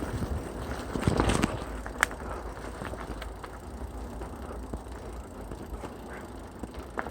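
Mountain bike rolling along a trail: tyre noise with scattered clicks and rattles from the bike, a cluster about a second in and a sharp click shortly after, over a steady low rumble.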